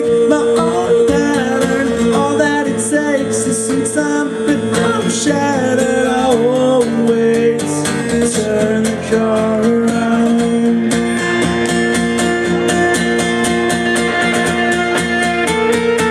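Live band music led by guitars in an instrumental passage without lyrics; from about eleven seconds in a steady, even strummed rhythm takes over.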